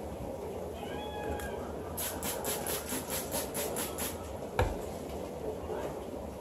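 Sounds of cleaning a refrigerator. A brief high-pitched squeak comes about a second in, then about two seconds of quick, even scrubbing or wiping strokes at about five a second. A single sharp knock follows near the end.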